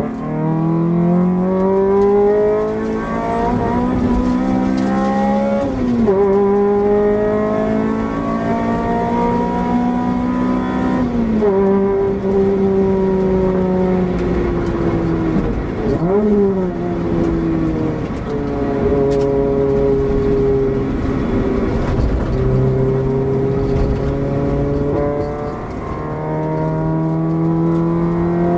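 Honda Civic SiR's 1.6-litre four-cylinder VTEC engine driven hard, heard from inside the cabin. The engine note climbs and falls slowly with the throttle and shifts suddenly in pitch about five, eleven and sixteen seconds in, over steady road and wind noise.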